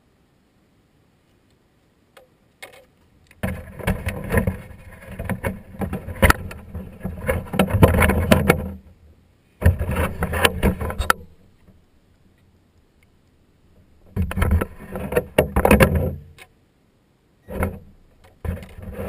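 Traxxas Slash RC truck driving in short bursts, heard through a camera mounted on it: its tyres and drivetrain rumble and rattle over asphalt. There are four bursts, the first and longest starting a few seconds in and lasting about five seconds, with quiet between.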